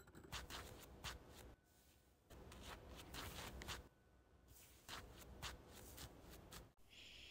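Faint rustling and small scratches of hair and metal hairpins as a ballet bun is pinned in place, coming in three short spells with quieter pauses between.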